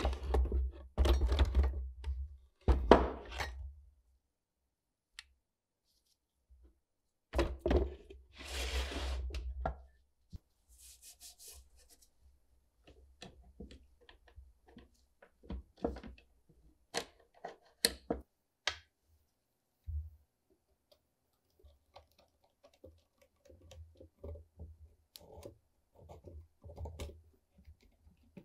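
Rusty metal airgun parts clattering and knocking in a wooden crate as they are lifted out and set down. Several loud clanks come in the first few seconds and again a few seconds later, then lighter clicks and taps as small rusted parts are handled.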